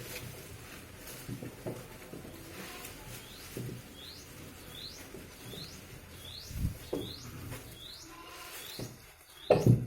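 A bird calling with short, high, rising chirps, about two a second, through the second half. Underneath are scattered low knocks and bumps, the loudest a thump near the end.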